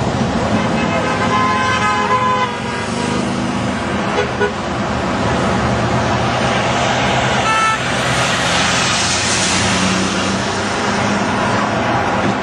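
Steady road traffic passing close by, with a car horn honking about two seconds in and again briefly near eight seconds in, the honks answering the protesters' "honk" sign. A passing car swells louder around eight to ten seconds in.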